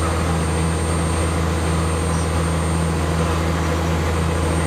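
Lobster boat's inboard engine running steadily at cruising speed with the boat underway at about ten knots, a constant low drone.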